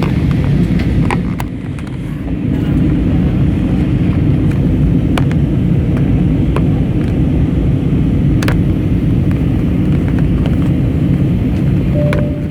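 Steady rumble of engine and airflow noise inside an Airbus A320neo's passenger cabin in flight, heaviest in the low end, easing slightly about two seconds in. A few faint clicks, and a brief steady tone near the end.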